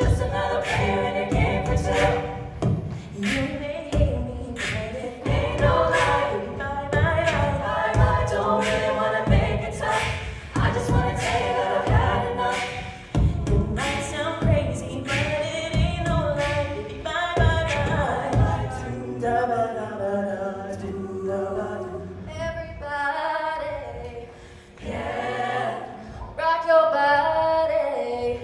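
A collegiate a cappella group singing a multi-part arrangement into microphones, amplified through stage speakers, with no instruments. A steady beat runs under the chords through the first part and drops out about two-thirds of the way through, leaving held chords.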